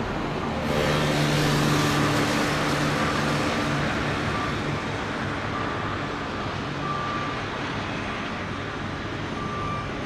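A road vehicle passing close by: a rushing noise that swells sharply about a second in, with a low steady engine tone, then fades away over the next few seconds against a steady traffic and machinery background.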